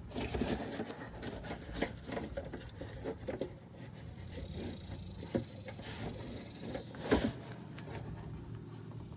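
Handling noise from hands and tools working on a truck antenna base mount: irregular rubbing, scraping and light clicks, with a sharper knock about seven seconds in.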